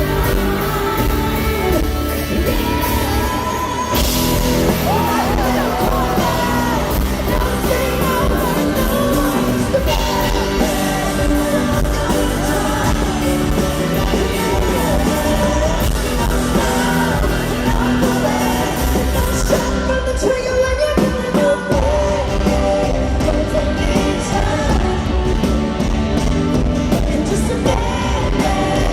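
Live concert performance of a country-pop rock song: a woman singing lead over a full amplified band, heard through an arena's sound system, with yells from the crowd.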